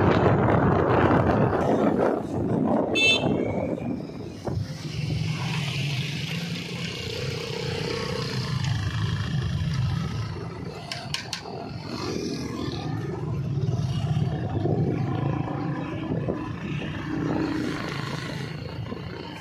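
Road traffic and engine noise along a town street: a loud rush of noise in the first two seconds, then a steady low engine hum with passing vehicles.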